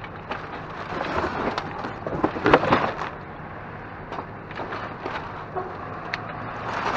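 Irregular knocking, clattering and scraping as a large metal dolly (hand truck) is wrestled out of a dumpster. It is loudest about one to three seconds in, then quieter scattered knocks follow.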